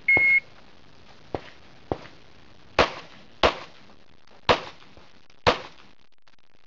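A shot timer's start beep, one steady high tone for about half a second, followed by pistol shots fired in a USPSA stage: two lighter shots, then four louder ones roughly a second apart.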